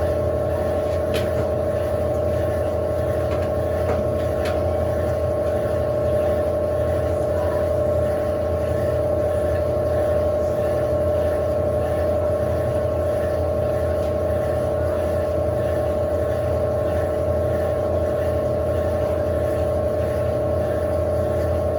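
Electrolux LAC16 top-load washing machine running steadily with a constant whine and low hum, the even sound of its drum spinning near the end of the cycle.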